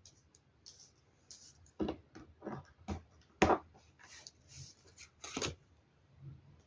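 Tarot cards being shuffled and drawn, with several sharp slaps and rustles of cards against each other and the table. Near the end comes a short faint low buzz, a phone vibrating with an incoming call.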